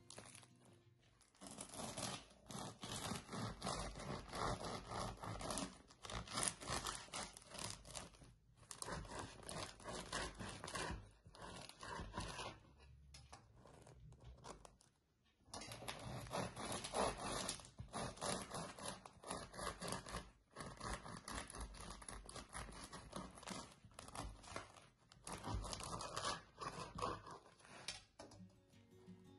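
Crusty homemade white bread loaf torn open by hand, the crisp crust crackling and crunching, then sawn through with a serrated bread knife, the crust crunching with each stroke. There is a short quiet pause about halfway through.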